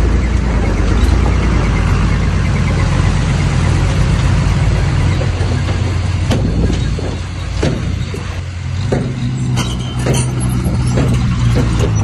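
Heavy diesel earthmoving machinery running with a steady low drone, louder in the first half. From about halfway through, a run of sharp knocks and clanks.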